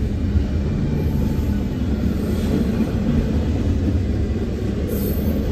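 Steady low rumble of double-stack intermodal well cars loaded with shipping containers rolling past on the rails.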